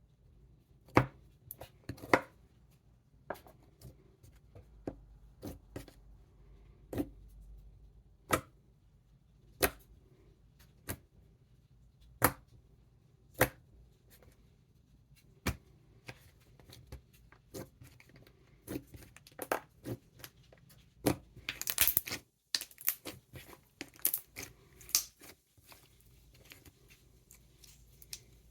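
Thick silken-tofu-texture slime (Ohana Slime Company's "Where's the Nog?") being squeezed and stretched by hand, making loud, crisp clicks and bubble pops. At first they come singly, about one a second, then in quick clusters near the end.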